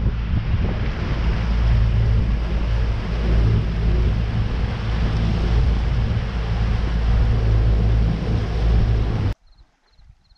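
Bass boat's Mercury outboard motor running at speed, a steady low rumble mixed with wind and water rushing past the hull; it cuts off abruptly about nine seconds in.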